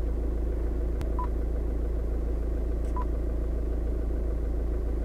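Two short high beeps from an Android head unit's touchscreen as it is tapped, about two seconds apart, over a steady low rumble in the car's cabin.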